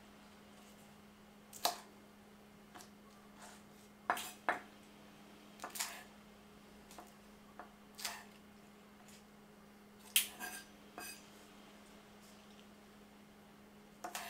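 Light, scattered knocks of a kitchen knife on a cutting board, about fifteen at uneven spacing, with a faint steady hum underneath.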